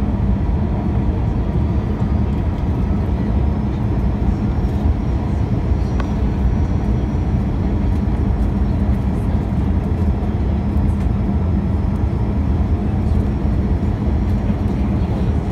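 Airliner cabin noise during the descent on final approach: the jet engines and the airflow make a steady, loud rumble with a low hum running through it.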